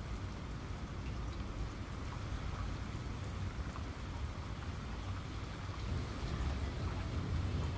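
Steady rain-like hiss with a low rumble underneath and a few faint, light clicks.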